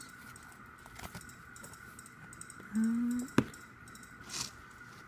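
A cardboard album photobook being handled and opened, with soft paper and card rustling, a light tap about a second in and a sharp click a little over three seconds in. A faint steady high whine runs underneath.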